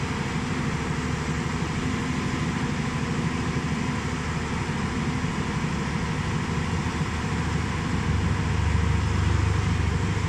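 Diesel engine of a JCB 205 tracked excavator running steadily while its hydraulic boom and bucket are worked. The engine gets a little louder and deeper about eight seconds in.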